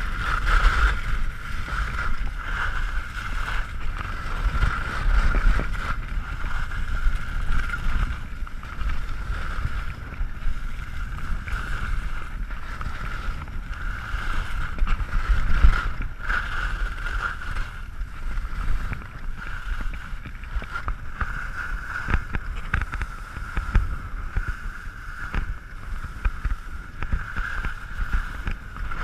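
Wind buffeting the microphone of a body-mounted action camera with a low, fluttering rumble, while skis hiss steadily over firm groomed snow during a downhill run.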